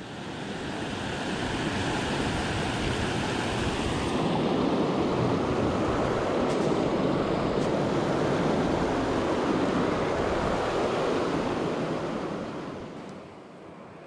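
Creek water rushing over rocks in a shallow whitewater rapid, a steady rushing noise that builds over the first couple of seconds and fades down about a second before the end.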